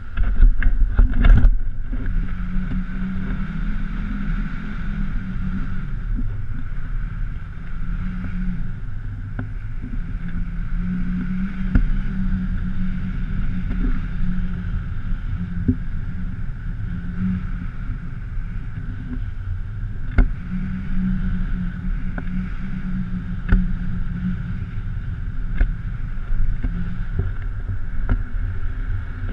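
Airflow buffeting a pole-mounted GoPro camera in paraglider flight: a steady, muffled wind rumble with a steady higher tone underneath. A cluster of loud knocks in the first couple of seconds and a few sharp ticks later come from the camera and pole being handled.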